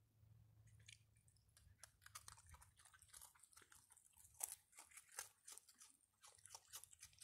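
An opossum crunching and chewing hard, dry treats: a quick, irregular run of crisp crunches that starts about a second in and carries on, loudest in the middle.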